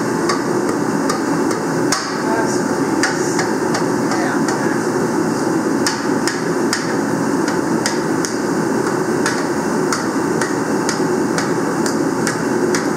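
A mallet striking the cylinder liners of a John Deere 4010's six-cylinder engine block to drive them down into their bores, sharp blows about two or three a second, with uneven spacing. A loud steady rushing noise runs underneath.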